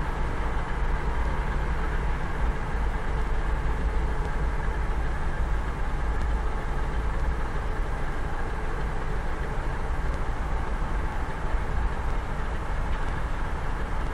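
SU46 diesel locomotive's engine running steadily, a low even drone with a faint steady tone over it.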